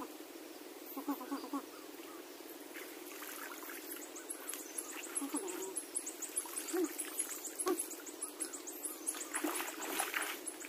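Rapid, high chirping from small wild creatures repeats over a steady low hum. Near the end there is a short burst of splashing water as a hand net is lifted from the shallow river.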